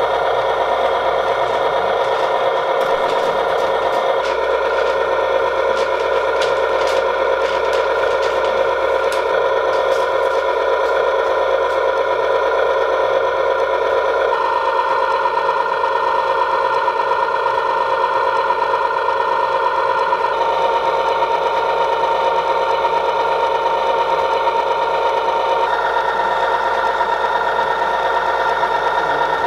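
Williams O-gauge Genesis model locomotive's electric motors and gearing whirring steadily, a humming whine that holds even throughout.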